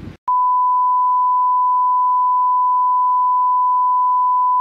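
TV colour-bars test tone: one loud, unbroken beep at a single steady pitch, starting a moment in.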